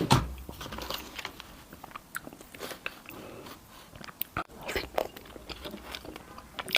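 A person biting and chewing Chinese food, with many short crunchy, smacking clicks; the loudest bite comes right at the start.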